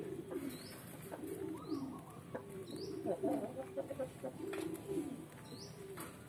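Birds calling: low, wavering coo-like calls repeating about once a second, with short, thin, high rising chirps now and then.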